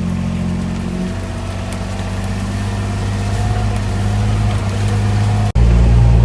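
A vehicle engine running steadily with a low hum, cut off briefly about five and a half seconds in and then going on a little louder.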